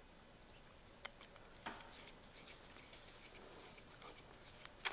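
Faint small ticks and scrapes of a screwdriver turning a screw in the switch of an old circular saw, with a sharper click near the end.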